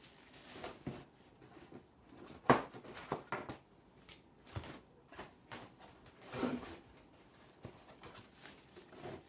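Scattered light knocks and rustling from handling a boxed wall clock and its packaging, with the sharpest knock about two and a half seconds in.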